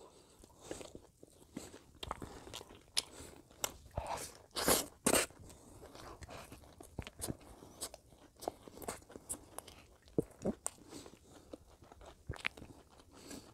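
Close-up eating sounds of a person eating lamb curry and rice by hand: chewing and wet mouth clicks, with a few louder mouth sounds about five seconds in. Hands can also be heard pulling meat apart on the plate.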